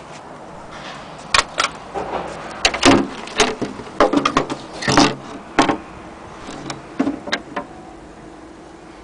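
Triumph Adler manual typewriter clattering: a run of irregular sharp keystrokes and mechanism clacks, some in quick clusters, starting about a second in and stopping near the end.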